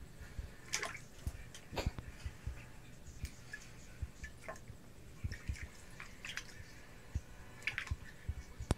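Small, irregular splashes and drips of shallow water in a glass dish as two bearded dragons shift and paddle in it, with a few soft low knocks.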